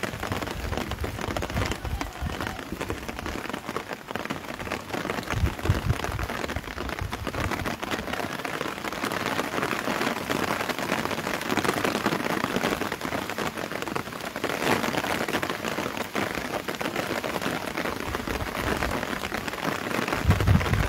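Steady rain falling, a dense even hiss of drops, with a few brief low rumbles near the start and about five seconds in.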